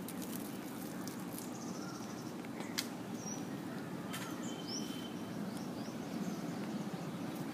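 Outdoor ambience: a steady low background murmur, with a few short bird chirps about halfway through and a single sharp click a little before that.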